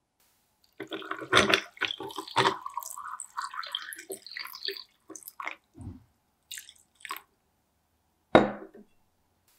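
Water poured from a glass pitcher onto ice cubes in a tall glass, the ice clinking as the water splashes in. The pour stops about five seconds in, and a few short clicks follow as the ice settles. A single sharp knock comes near the end.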